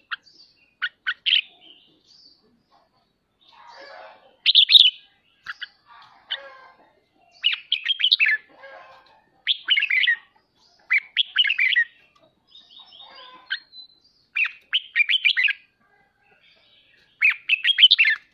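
Red-whiskered bulbul chattering: short bursts of quick notes, one every second or two. This is the excited, provoked chatter that keepers try to draw out of a caged bulbul.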